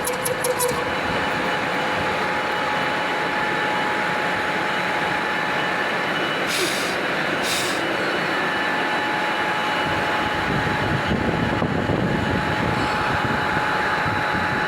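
Metal lathe running steadily with a constant hum and whine while cutting an 8 mm key, with two brief high hisses near the middle.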